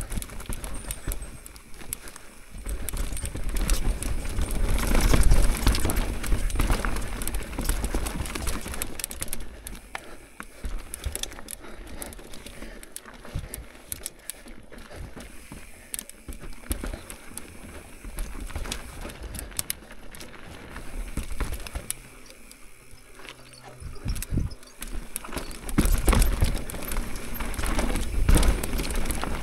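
Mountain bike riding down a rough dirt and rock trail: tyres rolling over the ground and the bike rattling with many small knocks. Heavier low rumble, like wind on the microphone, swells about four seconds in and again near the end.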